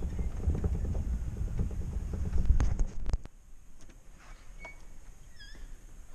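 Vehicle driving slowly on a dirt track, a low rumble with wind buffeting the microphone, ending in a few clicks; then it cuts to a quiet room with a faint chirp near the end.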